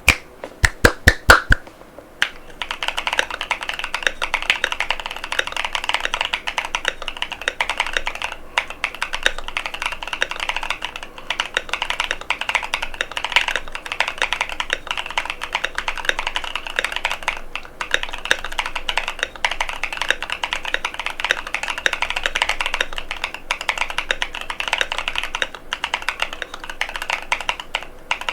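Mechanical keyboard typing on a Keychron Q6 Max with Durock White Lotus linear switches and PBT Cherry-profile keycaps: a few loud, separate key strikes at first, then fast, continuous typing from about two seconds in.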